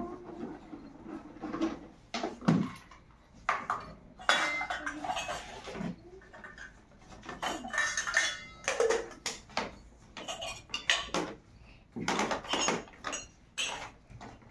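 Dishes and pots clattering and clinking: a run of irregular knocks and scrapes, some with a short metallic ring.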